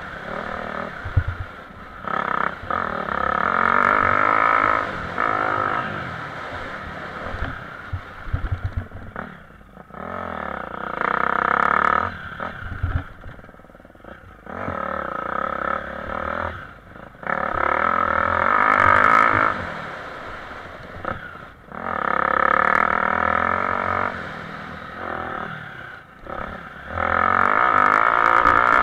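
Motocross bike engine, heard from the rider's onboard camera, revving hard under throttle and dropping back off it about six times as the bike is ridden round a dirt track.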